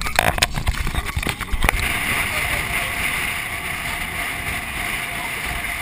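Vehicle driving fast on a gravel road, heard from inside the cabin. A run of knocks and jolts over the first couple of seconds gives way to steady road and wind noise.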